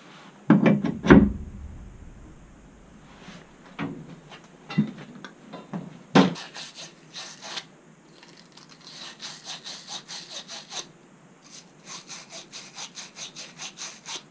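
A few loud knocks, then runs of quick back-and-forth scraping strokes from a hand tool, about four to five a second, in bursts of a second or two.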